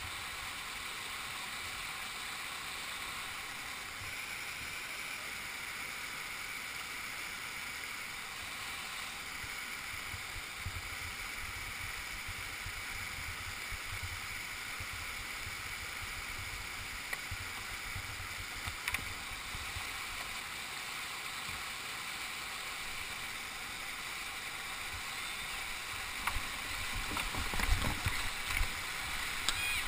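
Whitewater of a shallow, rocky creek rapid rushing steadily around a kayak. Near the end it grows louder, with irregular splashes and knocks as the kayak paddles down into the rapid.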